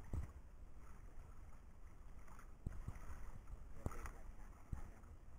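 Sea water lapping around a small outrigger fishing boat, with a low steady rumble of wind on the microphone and a few sharp knocks as the hand line is hauled in.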